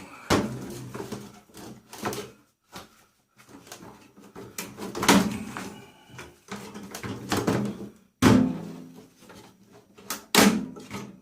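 Metal parts of a microwave being handled and dropped while it is stripped for scrap: a series of knocks and clanks, the loudest near the start, about halfway, and twice near the end, some leaving a short metallic ring.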